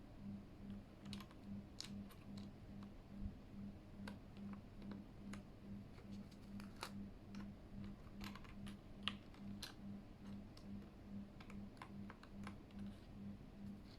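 Faint, irregular light plastic clicks and taps from a Keychron K8 mechanical keyboard as keycaps are worked on and off its switches, one click a little louder about nine seconds in. Under them runs a faint low hum that pulses about two to three times a second.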